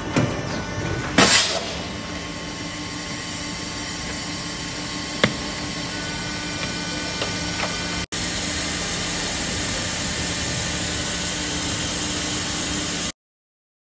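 Hydraulic blow-moulding machine running with a steady hum and hiss. About a second in there is a short crackle of plastic as the freshly blown PE jar is handled and trimmed, and a single click about five seconds in.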